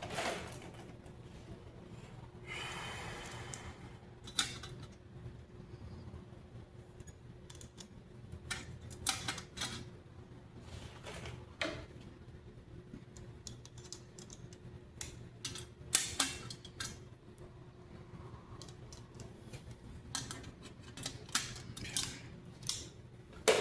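Irregular sharp clicks and clinks of small metal fasteners being handled and fitted into the holes of a steel great helm's plates. A short scraping sound comes about three seconds in, over a steady low hum.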